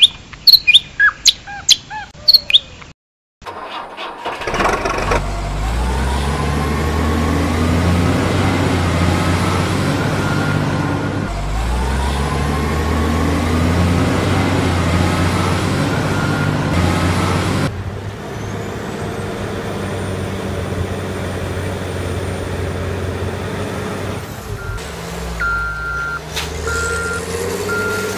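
Birds chirping for the first few seconds, then a truck engine running, revving up twice with a rising whine, and a few short reversing beeps near the end.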